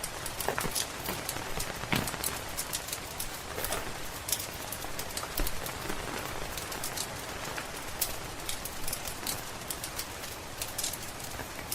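Steady rain pattering, with frequent irregular sharp crackles and pops from a wood fire in a fireplace.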